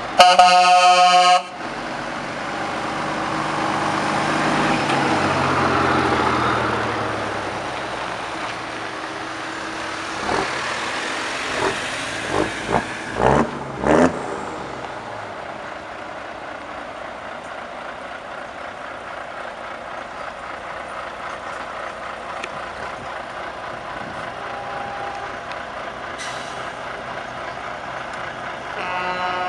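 Trucks in a slow parade driving past. A loud truck air horn blast opens, then a truck's diesel engine swells and fades as it passes, followed by a cluster of short sharp bursts between about 10 and 14 seconds and a steady lower engine drone from slow-moving trucks.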